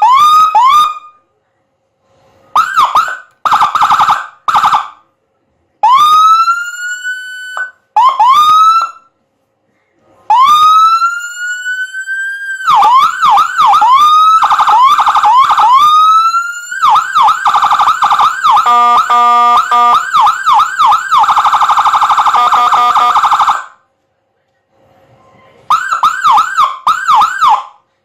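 Electronic siren played loud through a Whelen 100-watt speaker, stepping through its tones in turn with short gaps between them. It gives short rising chirps, slow rising wails, a fast repeating yelp, and a rapid warble that breaks into stepped tones partway through.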